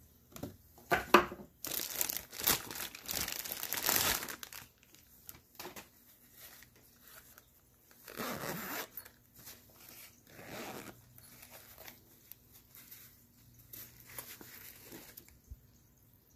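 Clear plastic packaging bag crinkling and rustling as a zippered nylon case is handled and pulled out of it, loudest in the first few seconds; then the case's zipper is drawn open in two short pulls, followed by lighter handling.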